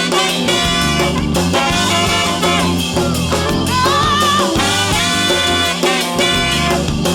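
Upbeat music with horns and drums, an instrumental stretch between sung lines.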